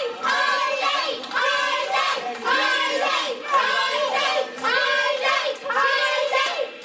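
A small crowd with many children's voices chanting the same short phrase over and over, about once a second, with hand-clapping.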